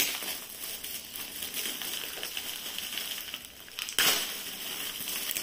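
Shiny metallic gift-wrap paper being crinkled and pulled open by hand, a continuous crackling rustle. It has a sharp loud rustle at the start and a louder rip about four seconds in as the wrap is torn away.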